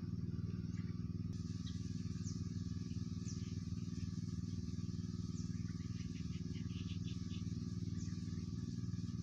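An engine running steadily, an even low hum that never changes. Short, high, falling chirps sound over it every second or so.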